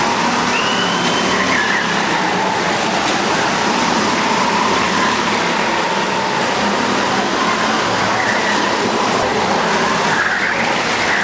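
Several go-karts racing through the turns of a kart track, their small engines running steadily, with higher whining notes rising and falling as the karts pass.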